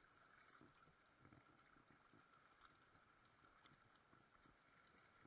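Near silence: a faint steady rushing of the river, with a few soft handling knocks.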